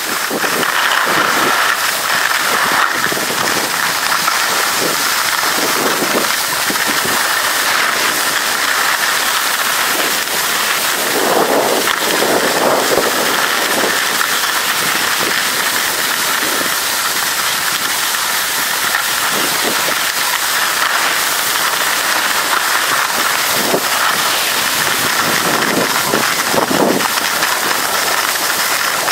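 Steady rushing hiss of skis sliding and scraping over the snow, mixed with wind on the microphone, with a few louder scraping swells partway through.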